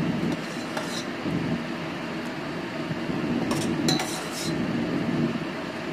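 A metal ladle scraping and clinking against a stainless steel pot while curry is scooped out: a clink about a second in, then a quick cluster of clinks near the four-second mark, over a steady background hum.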